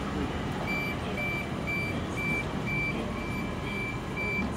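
Door-closing warning beeps from a New Intercity Fleet (D set) electric train: a short high beep repeating about twice a second, starting about a second in, over the train's steady hum. The beeps signal that the passenger doors are about to close, and the doors start sliding shut near the end.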